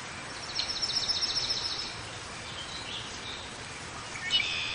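Small songbirds chirping over a steady outdoor hiss. A quick run of high chirps, about ten a second, lasts for over a second, followed by a few scattered fainter chirps and a louder burst of chirps near the end.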